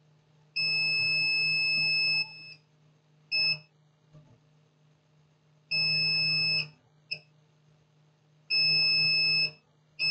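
Multimeter continuity beeper sounding as the probes are held across the TV power supply's rectifier diodes: a steady high-pitched beep, first for about a second and a half, then a short blip, then two beeps of about a second each. The beeping shows the diodes under test are shorted.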